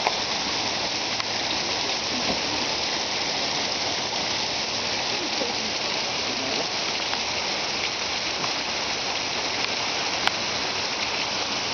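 Mallyan Spout waterfall, a steady rush of falling water and spray splashing onto the rocks close by.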